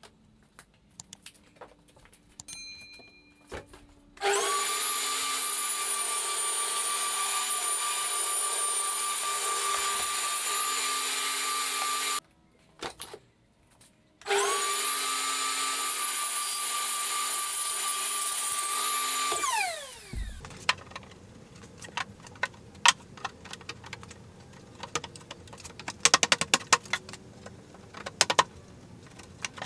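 Metabo TS254 table saw and a shop vacuum running together, the vacuum switched on with the saw by a master-slave power module, with a steady high whine. It runs in two stretches, from about four to twelve seconds and again from about fourteen seconds, and the second winds down with falling pitch at about twenty seconds. After that come light clicks and knocks of wooden pieces being handled.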